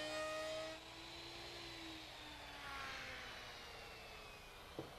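Electric wood router running with a steady whine, then easing off about a second in and spinning down, its pitch falling slowly as the motor winds down. A short knock near the end.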